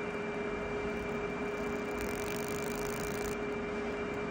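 Steady machine hum with a constant pitched tone over a noisy whir.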